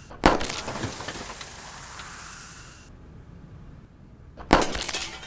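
Two sharp .22 rifle shots about four seconds apart, each with a short ringing tail, over a steady hiss that stops about three seconds in.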